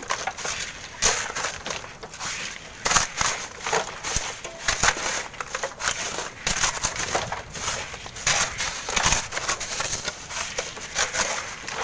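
Shovels and hoes digging and scraping into gritty sand and gravel, a quick, irregular run of scrapes and crunches.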